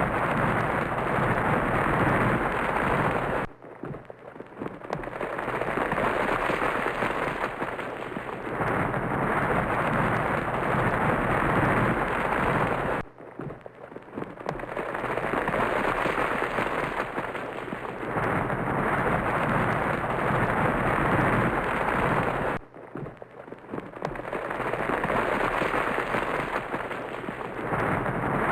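Volcanic eruption sound effect: a dense, crackling rumble. About every nine and a half seconds it cuts out suddenly, then swells back up over a few seconds.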